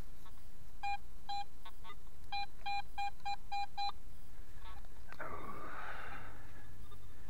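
Metal detector sounding a string of short beeps on one high pitch, about three a second in the middle, as the coil sweeps back and forth over a buried target. About five seconds in, a brief scraping rush follows.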